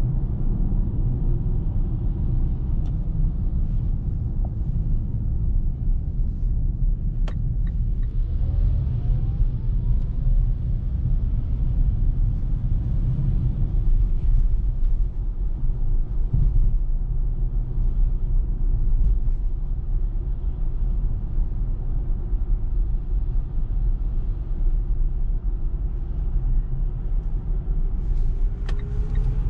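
Cabin road noise of a Mitsubishi Eclipse Cross PHEV on the move: a steady low tyre and road rumble. Faint rising whines come in about eight seconds in and again near the end.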